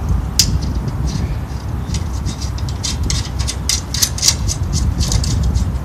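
Small metallic clicks and ticks of a bolt and nut being fitted by hand as a steel side rail is mounted to a radial arm saw's base: one sharp click near the start, then a quick irregular run of clicks from about two seconds in, over a steady low rumble.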